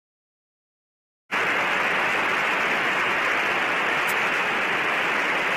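Silence, then a steady radio-like hiss cuts in abruptly about a second in and holds at an even level: the background noise of a live broadcast audio feed.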